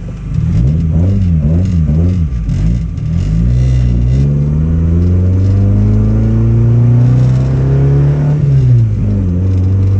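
1997 Honda Civic EK's four-cylinder engine pulling hard: a few quick throttle blips, then the revs climb steadily for about five seconds as the car accelerates. Near the end the pitch drops sharply and then holds steady.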